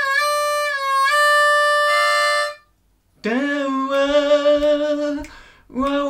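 C diatonic harmonica playing the 4 draw as single notes, bent down and back up several times; it stops about two and a half seconds in. After a short gap, a man's voice sings the same phrase without words, sliding up into a held note with a slight wobble, then starts it again near the end.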